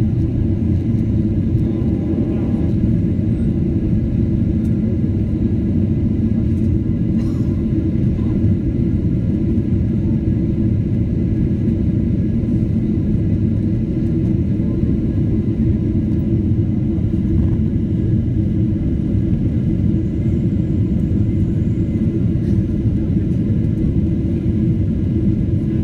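Steady airliner cabin noise heard from a window seat: a constant low rumble of the engines and the airflow around the fuselage as the plane descends toward landing.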